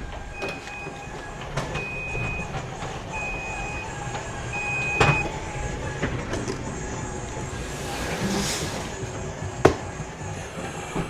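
A high electronic beep repeating four times, about every 1.3 seconds, then stopping, over a low rumble. Knocks and thuds come throughout, the sharpest near the end, with a brief hissing scrape a little before it.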